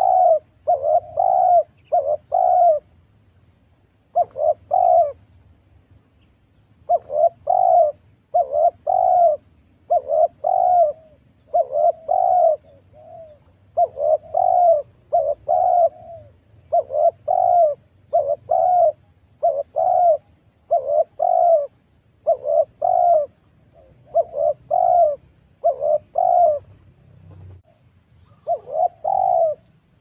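Spotted dove cooing: a long run of repeated coo notes in quick succession, broken by short pauses about three and five seconds in and near the end.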